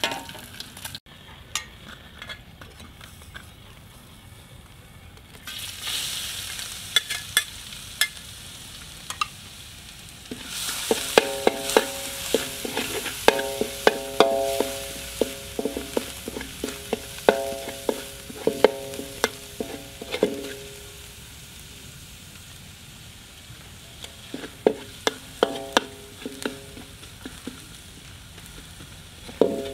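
Eggs sizzling in hot oil in a metal wok while a metal spatula scrapes and knocks against the pan. The wok rings with the strokes, most often in the middle stretch.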